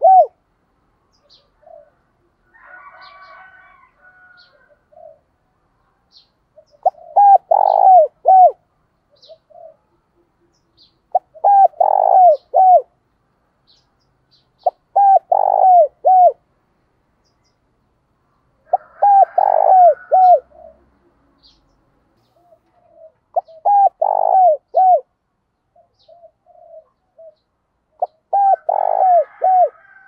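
Spotted dove cooing its calling song, a phrase of a few notes repeated about every four seconds. This is the call a decoy dove gives to lure wild doves. Faint high chirps of small birds come in between.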